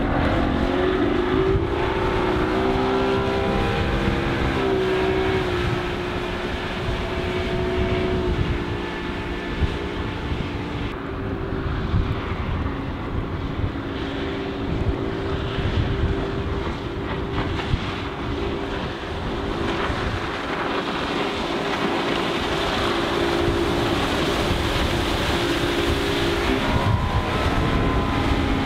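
Mercury 150 hp SaltWater-series oil-injected two-stroke outboard engine on a Sea Fox 210 running under throttle, heard from outside the boat. Its note rises over the first few seconds as the boat accelerates, then holds steady at speed, and shifts near the end as the boat turns hard.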